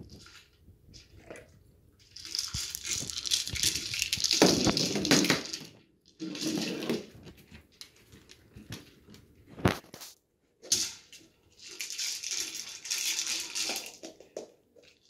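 Plastic treat-dispensing ball being nosed along by a dog, rolling in stretches with the treats rattling inside, and two sharp knocks partway through.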